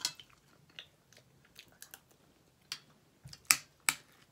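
A person chewing food, with a few sharp mouth clicks and smacks at close range; near the end a metal spoon clicks against a ceramic bowl as it scoops mashed potato.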